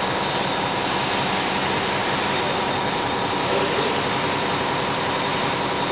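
Concrete mixer truck running steadily during a slab pour: an even, continuous mechanical noise with faint steady whining tones.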